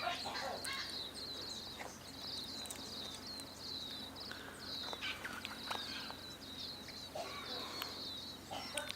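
Birds at a feeder making short calls every second or so, over a continuous high, rapid chirping.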